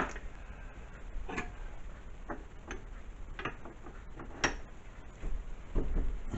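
Scattered light clicks and knocks of small metal tools being handled and set down, the loudest about four and a half seconds in and a few more near the end.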